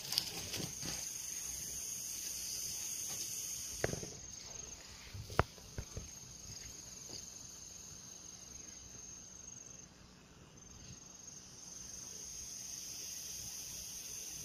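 Insects, such as crickets, chirring in a steady high-pitched drone that dips briefly about ten seconds in. A few sharp clicks or knocks come in the first six seconds.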